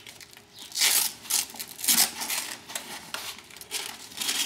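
Hook-and-loop straps being pulled open from around the aluminium frame tubes of a paramotor: two loud ripping sounds about a second apart, with smaller clicks and rustling between them.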